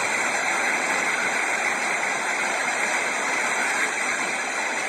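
A steady, even rushing noise as a multi-storey building collapses in an earthquake and its dust cloud rolls out; no separate crashes stand out.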